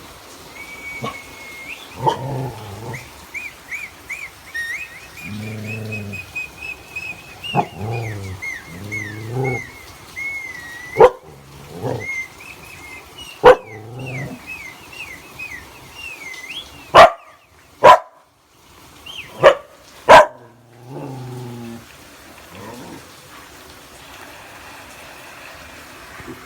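A dog barking and making drawn-out, low vocal sounds at a high warbling electronic tone that is being played to it. The tone wavers up and down throughout the first half and stops about two-thirds of the way in. A handful of sharp, loud barks come in the middle.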